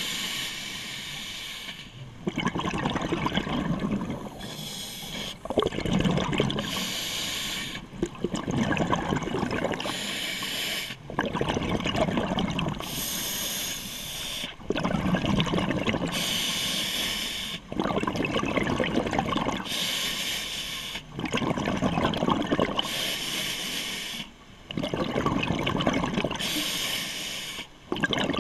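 Scuba regulator breathing underwater: a short hiss of air drawn through the demand valve, then a longer bubbling exhale, repeating about every three to four seconds, some eight breaths in all.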